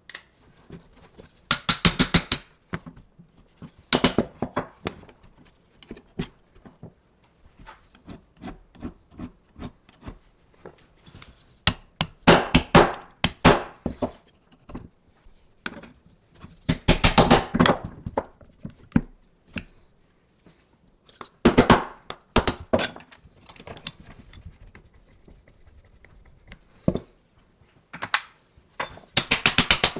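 Hand-tool work on the metal and wooden parts of an antique noodle maker: about five bursts of rapid clicking and knocking, each about a second long, with scattered taps and rubbing between them.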